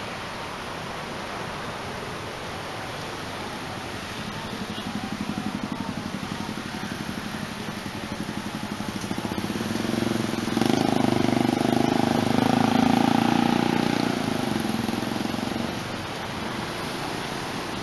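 Street traffic of motorcycles passing close by, small engines running. A nearer engine comes up about four seconds in, and the loudest pass runs from about ten to fifteen seconds in, then fades.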